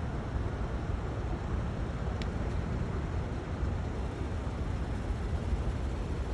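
Steady low rumble of car and road noise, with one faint short click about two seconds in.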